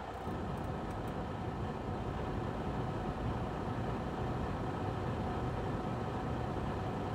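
Semi truck's diesel engine idling, a steady low rumble heard from inside the cab, with a faint steady hum over it.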